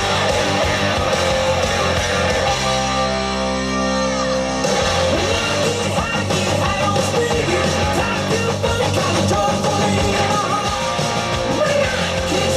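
Rock music with guitars and singing, with a brief held-chord break about three seconds in before the full band comes back.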